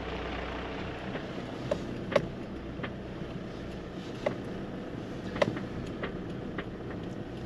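Inside the cabin of a Toyota RAV4 driving slowly over a grass field track: a steady engine and tyre rumble with a handful of sharp knocks and rattles as it rides over the rough ground.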